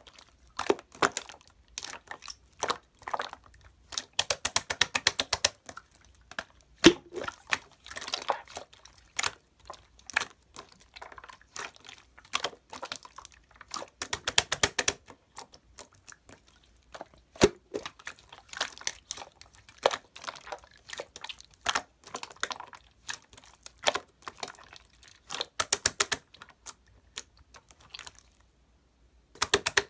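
Close-miked crinkling and crunching in irregular bursts of rapid crackles, with short pauses between.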